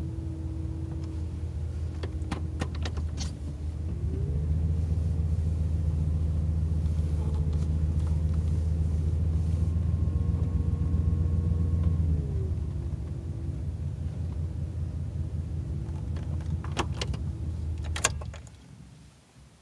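Truck engine running, heard from inside the cab. About four seconds in it revs up and holds higher and louder for about eight seconds, then drops back to idle. A few sharp clicks come early and again near the end, just before the sound falls away.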